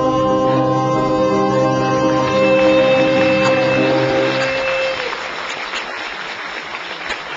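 A song ends on a long held final chord that stops about five seconds in. Audience applause swells under it and carries on after it.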